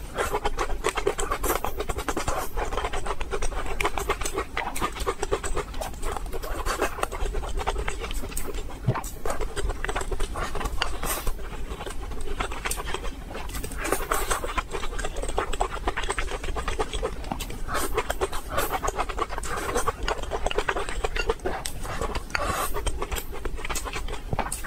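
Close-miked eating sounds: wet chewing and slurping of stir-fried noodles and vegetables, with many quick mouth clicks and smacks and breathy sucking-in of long strands.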